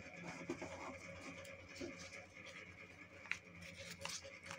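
Origami paper rustling and creasing under the fingers as it is folded, faint, with a few sharp crinkles from about three seconds in, over a steady low hum.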